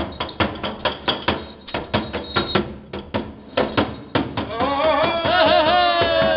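A handheld riveted metal sheet beaten in a fast, irregular clatter of about four to five strikes a second. From about four and a half seconds in, a long high wavering tone takes over.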